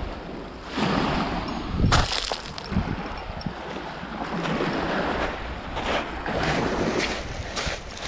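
Small waves washing in and drawing back over a pebble shore, coming in several swells a second or two long, one louder surge about two seconds in.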